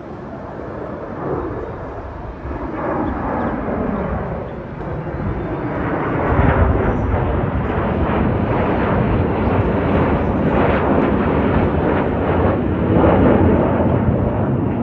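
Four USAF Thunderbirds F-16 Fighting Falcons flying over in formation at low altitude: jet noise that builds over the first six seconds or so, then stays loud and steady, heavy in the low end.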